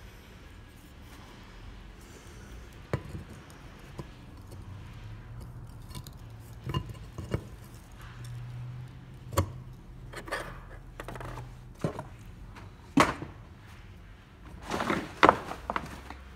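Scattered clicks, clinks and knocks of metal encoder parts being handled and fitted together on a workbench, as the encoder's cylindrical body is slid over its base and set down. The louder knocks come in a cluster near the end.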